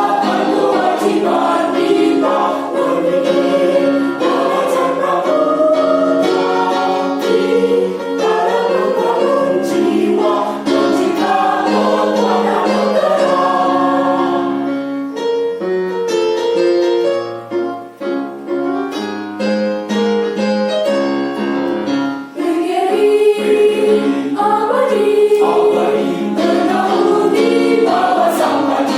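A choir singing in parts, many voices together, with a softer, thinner passage about halfway through.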